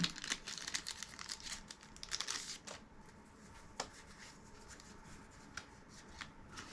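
Packaging crinkling and tearing as a toy's wrapping is opened by hand. It is busiest for the first two and a half seconds, then thins to a few scattered clicks and rustles.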